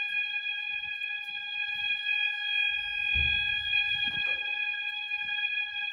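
System Sensor MASS fire alarm horn sounding a steady, unbroken horn tone. There is a low thump about three seconds in.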